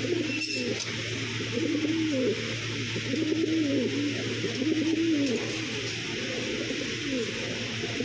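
Many domestic pigeons cooing together, short low calls rising and falling in pitch and overlapping one another, over a steady low hum.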